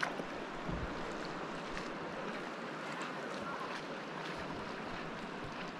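Steady rush of moving creek water around a kayak, with small splashes and a low knock less than a second in.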